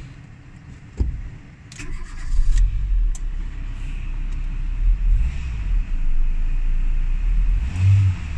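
Renault Twingo's four-cylinder petrol engine, heard from inside the cabin, starts about two seconds in, idles, then revs up near the end. On acceleration there is a small dip where it hesitates, which the owner finds still there with new spark plugs fitted.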